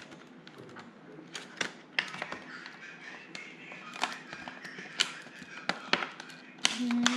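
Doll-box packaging being handled and opened: scattered light clicks and taps of plastic and cardboard. Near the end a steady low tone starts and slowly rises in pitch.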